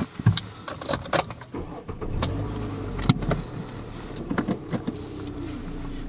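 Car engine running as the car drives off, heard from inside the cabin, its pitch bending up and down with speed, with several sharp clicks and knocks in the cabin.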